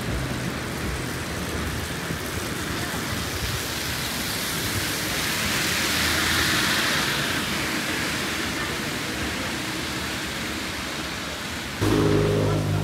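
Steady hiss of traffic on a wet road in the rain, swelling as a vehicle passes about halfway through. About a second before the end, a steady low droning hum with several tones starts abruptly.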